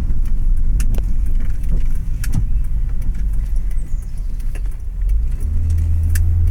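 Inside a Honda car being driven slowly: low engine and road rumble, with a few light clicks and jingles from keys swinging in the ignition. A steadier low drone sets in near the end.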